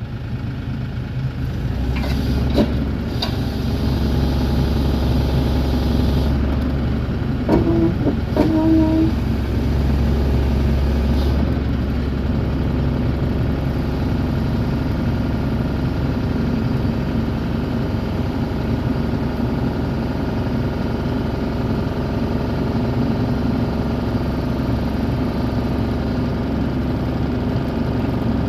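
Bobcat E42 compact excavator's diesel engine running steadily at working revs, picking up about a second in. A few sharp clicks come two to three seconds in, and a brief squeal about eight seconds in.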